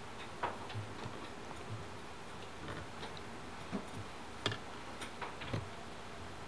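Scattered light clicks and knocks at an uneven pace over a steady hiss, the sharpest a little after four and a half seconds in.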